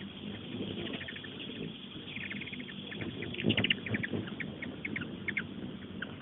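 Hummingbirds chasing each other around a feeder, giving rapid runs of high, short chip and twitter calls, loudest about three and a half seconds in.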